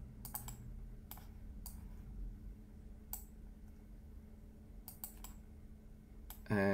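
Computer mouse and keyboard clicks: a scattered handful of short, sharp clicks at irregular intervals, over a faint steady low hum.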